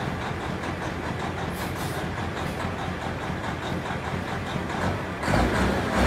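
Big diesel engine of a 2400-hp drag-racing semi-truck idling with a steady low pulse at the starting line, then opened up to full throttle about five seconds in, going suddenly louder as it pours out black smoke for the launch.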